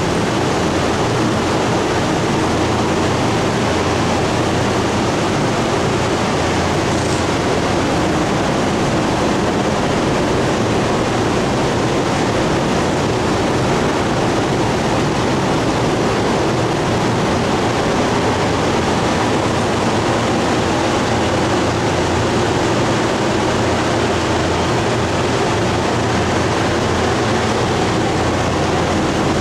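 Steady rush of air and fan noise from a paint spray booth's ventilation system running, loud and unchanging throughout.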